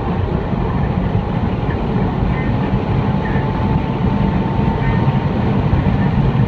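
In-cabin sound of a 2015 Audi A4 Quattro driving at speed on a wet track: a steady engine drone mixed with tyre and road noise.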